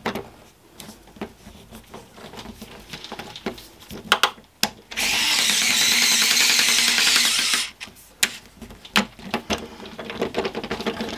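Cordless electric screwdriver driving in a screw, running steadily for about three seconds from about five seconds in and stopping suddenly, with light handling clicks before and after.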